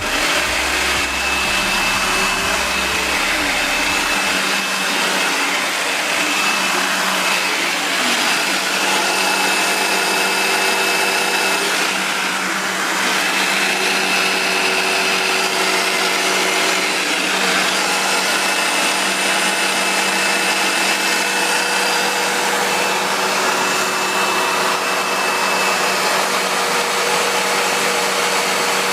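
Hoover U6630-900 self-propelled upright vacuum cleaner switched on, its motor coming straight up to speed and running steadily with a whine.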